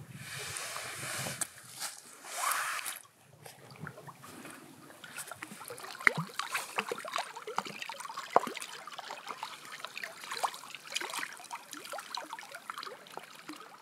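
Lake water splashing and sloshing around a wader's legs: a rush of splashing in the first second or so and again about two and a half seconds in, then small, irregular lapping splashes.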